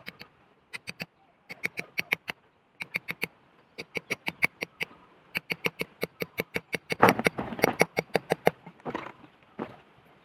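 Zebra doves making runs of short, sharp staccato notes, several a second in quick groups with short pauses, and a louder rough rustling stretch about seven seconds in.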